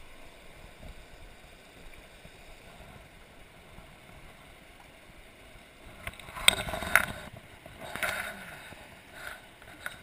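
Steady rush of a shallow, stony mountain river. About six seconds in come a few seconds of louder splashing and sharp clicks close by.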